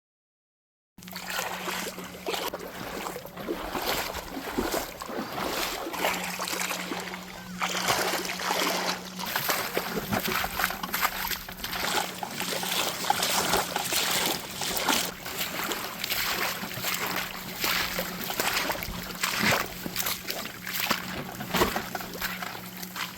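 After a second of silence, water splashing and lapping in a dense run of small irregular splashes, with a steady low hum underneath.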